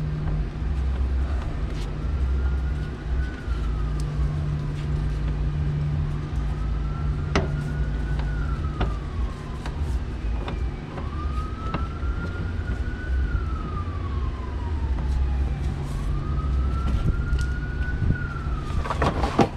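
A siren wailing in slow rises and falls, one cycle about every four to five seconds, over a steady low rumble, with a few light clicks.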